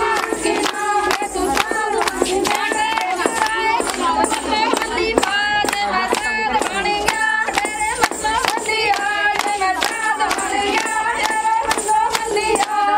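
A group of women singing Punjabi boliyan (folk couplets) in chorus over steady, rhythmic hand-clapping.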